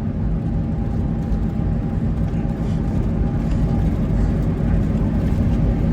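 Steady cabin rumble of a moving minibus: engine and road noise, low and even, with a faint steady hum above it.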